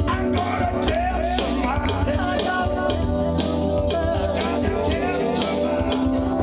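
Live gospel song: a man singing into a microphone over electric keyboard with a steady beat, about two beats a second.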